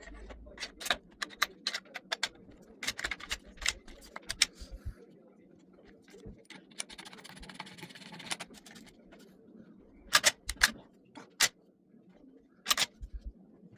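Irregular clicks and clacks of a new shotgun being assembled by hand, with a short scraping rustle about seven seconds in and a few louder clacks later on.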